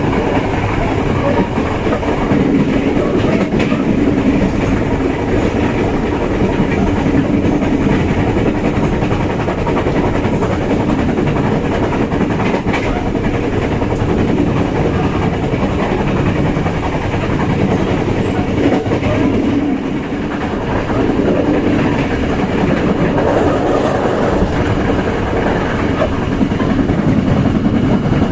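Indonesian Bengawan passenger train running at speed, heard from inside the carriage: steady wheel-on-rail running noise, with a brief dip in loudness about twenty seconds in.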